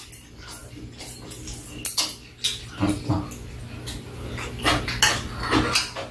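Metal chopsticks and spoons clinking against bowls and a metal tray table while eating, in scattered irregular clicks.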